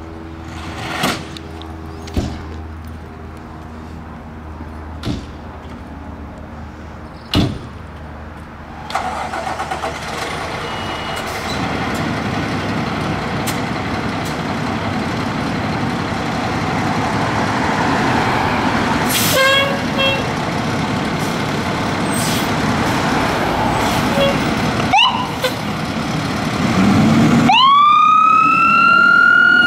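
Diesel engine of a 2016 Spartan Metro Star fire engine idling with a few knocks, then getting steadily louder as the truck pulls out under power. Short chirps and a quick upward sweep of the siren come midway. Near the end the siren starts its rising wail.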